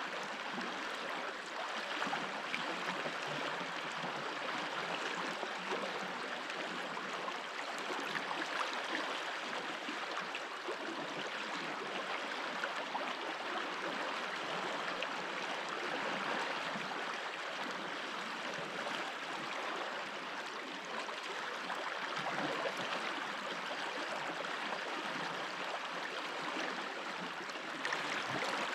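Stream water running and babbling steadily over stones.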